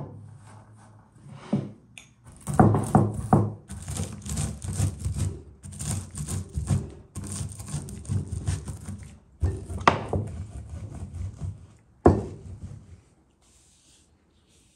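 Shelled walnuts being crushed under a wooden rolling pin on a wooden cutting board: crunching and crackling, with sharp knocks of the pin against the board. It stops near the end.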